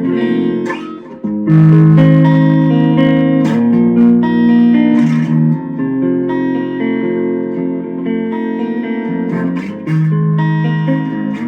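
Electric guitar played through a Boss Katana Mini amp on its clean channel with the delay set halfway, on the Epiphone's rhythm pickup: picked notes and chords ring into one another, with a short dip about a second in before a strong new note.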